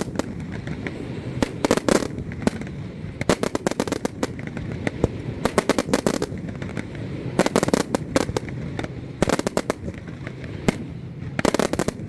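Fireworks exploding in clusters of rapid crackling bangs, a new volley every one to two seconds, over a steady low background rumble.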